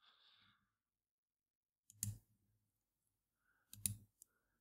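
Near silence broken by two soft computer mouse clicks, about two seconds in and again just before four seconds, as a drop-down list is opened.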